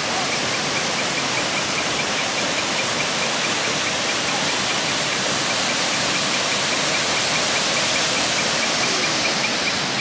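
Steady rush of water from a river and waterfall, an even hiss with no breaks, with a faint, quick repeated high chirp running over it.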